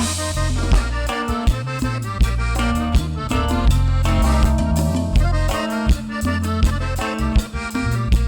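Cumbia band playing an instrumental passage: a lead melody over bass and a steady beat of drums and percussion.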